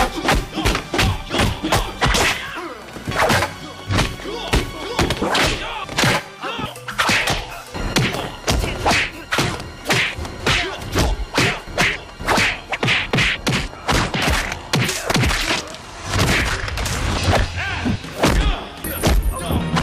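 Movie fight-scene sound effects: a fast, unbroken run of punch and kick impacts, thuds and whacks, about two or three a second.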